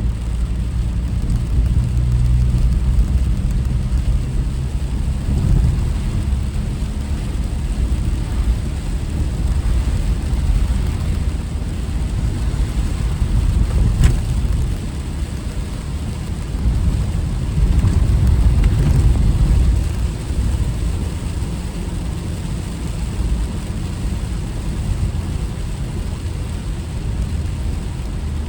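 Car driving along a road: a steady low rumble of tyres and engine that swells and eases a little, with one short click about halfway through.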